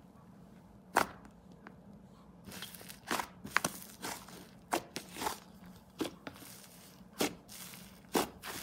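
Fluffy, chewy butter slime being squished and pressed by hand, making irregular sharp sticky pops and crackling as air pockets burst, busiest about three seconds in.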